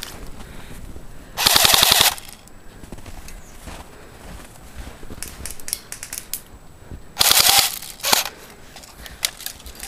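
AK-style airsoft rifle firing full-auto bursts, a fast even rattle of shots: one burst of under a second about one and a half seconds in, then another about seven seconds in, followed quickly by a short one.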